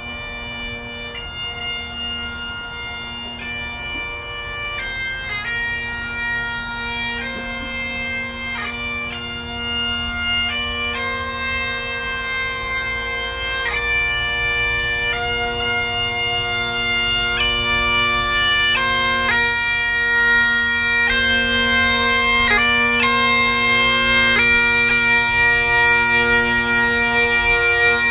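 Bagpipes playing a slow melody over steady, unbroken drones.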